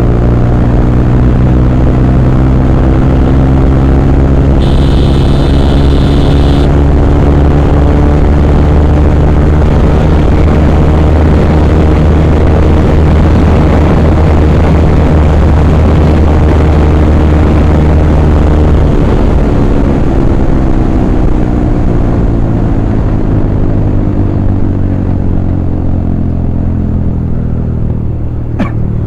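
Motorcycle engine running steadily at cruising speed on the move, then easing off and slowing, its pitch falling gently in the last third. A high steady tone sounds for about two seconds near the start, and a sharp click comes at the very end.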